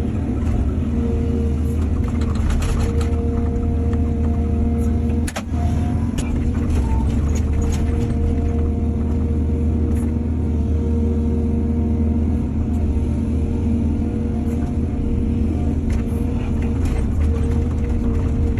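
Heavy diesel engine of an excavator running steadily, with occasional knocks and clanks over its low rumble.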